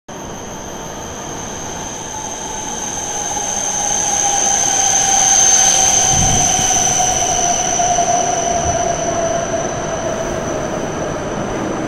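E7/W7-series Hokuriku Shinkansen train pulling in alongside the platform as it slows for its stop. A steady high whine and a lower whine that slowly falls in pitch run over the rush of the passing cars, loudest as the nose goes by about five seconds in.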